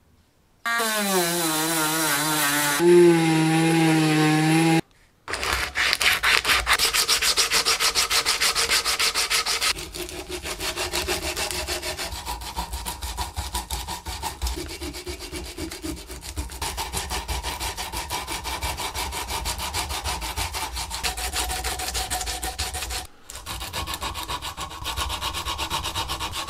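A wooden saw handle clamped in a vise being hand-sanded with a strip of sandpaper, in rapid back-and-forth rubbing strokes. It is preceded, about a second in, by a loud whine that drops in pitch, holds steady and cuts off abruptly after about four seconds.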